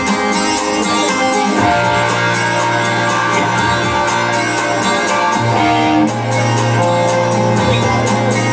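Live hard rock band playing: electric guitars, bass and drums with steady cymbal hits, heard loud through a club PA. About two seconds in, the bass settles onto a low held note.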